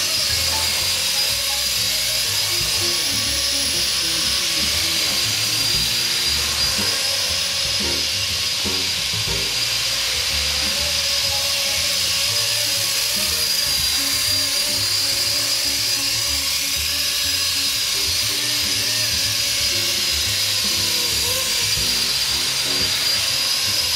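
Blade SR electric RC helicopter in flight: a steady high-pitched motor whine over the rush of the spinning rotor blades, its pitch wavering slightly as it manoeuvres.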